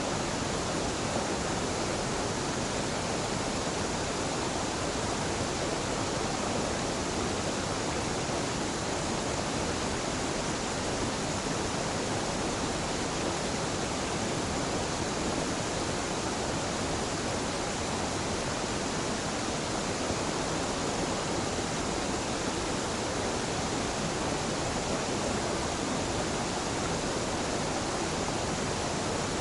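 Waterfall and mountain stream rushing: a steady, unbroken roar of falling and flowing water.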